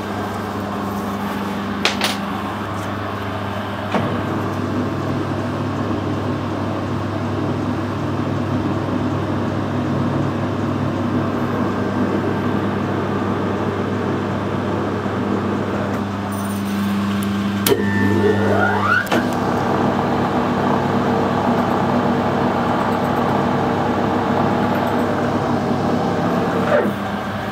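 Metal lathe running, with a tap in a tailstock collet chuck cutting a thread into a spinning aluminium-alloy bar; a steady machine hum, with clicks about two and four seconds in. A short rising whine comes about two-thirds of the way through.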